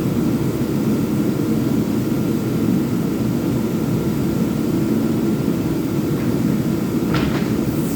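Electric power sander running steadily, with a couple of light clicks near the end.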